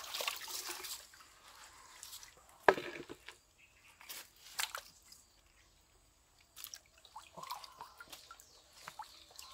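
Shallow stream water splashing and dripping as hands turn over rocks in the streambed, in short bursts, with one sharp knock about three seconds in.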